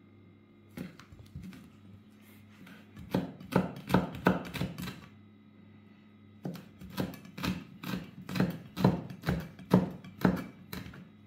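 Chef's knife mincing garlic on a wooden cutting board: quick knocks of the blade on the board, about three to four a second, in two runs with a short pause between.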